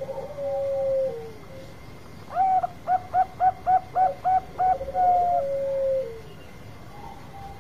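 Caged zebra dove, a Bangkok-bred perkutut with a long song, cooing. It gives one drawn-out coo, then a rapid run of about nine short staccato coos, and ends on a long note that falls away.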